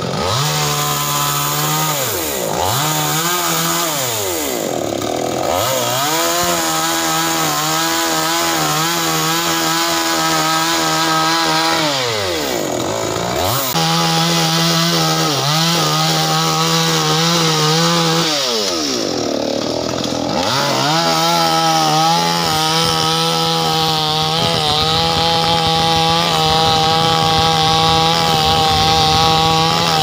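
Chainsaw running at full speed as it cuts through the wood of a felled tree. Its motor drops in speed and winds back up several times as the throttle is let off and squeezed again.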